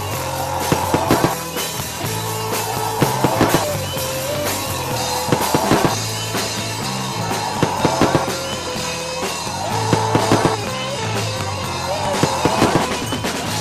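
Rock-style music with a driving drum kit and bass line, a phrase that repeats about every two and a half seconds.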